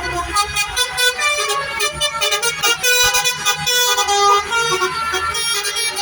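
Indonesian 'telolet' bus horns playing a fast multi-tone melody: several pitches sounding together, changing every fraction of a second in quick toots, over a low bus engine rumble.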